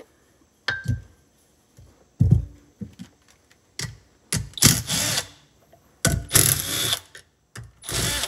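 Cordless driver run in about six short bursts, the longest about a second each, backing out the housing bolts of an ATV front differential case.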